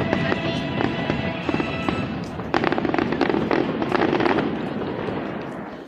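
Fireworks show with its music soundtrack playing; about two and a half seconds in, a dense run of rapid crackling bursts takes over, then fades away near the end.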